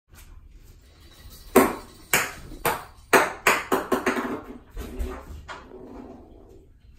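Ping pong ball bouncing in a bathtub: sharp clicks starting about a second and a half in, coming quicker and quieter as the bounces die down, then a few softer taps as it settles.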